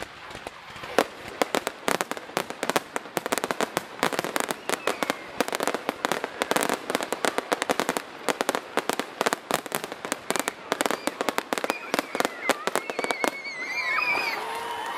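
Fireworks finale barrage: many aerial shells bursting in rapid succession, a dense run of bangs and crackles that stops about thirteen seconds in. People then start cheering and whooping.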